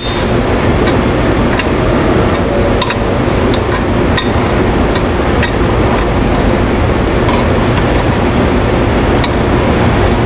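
Light metallic clicks and clinks at irregular intervals as the pump's metal coupling guard is worked loose by hand, over a loud steady drone of background machinery with a faint hum.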